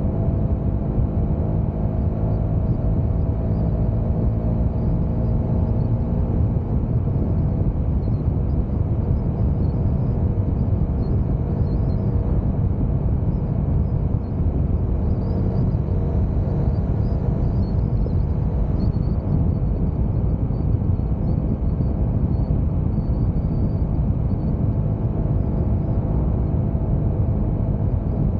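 Honda CBR sportbike engine running steadily on the move, its note clear for the first several seconds and then mostly covered by a steady rush of wind and road noise.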